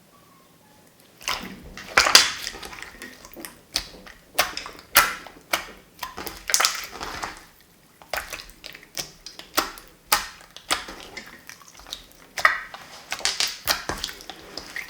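Homemade water-based slime being squeezed and kneaded by hand: a run of irregular wet squelches and clicks that starts about a second in.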